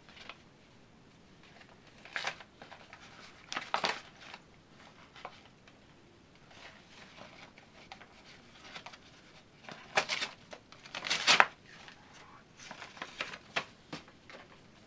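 A java macaque tearing and crumpling a paper envelope with its hands: irregular bursts of paper rustling and ripping, loudest about ten and eleven seconds in.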